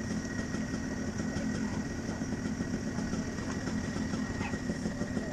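Rotax Junior Max kart's 125 cc two-stroke engine idling steadily while the kart sits stationary.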